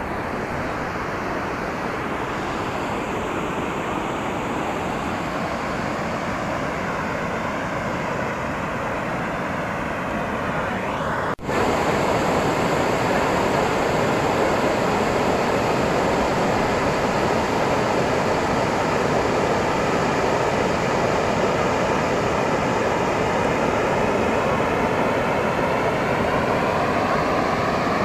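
Waterfall's falling water rushing steadily. The sound breaks off for an instant about eleven seconds in and comes back louder.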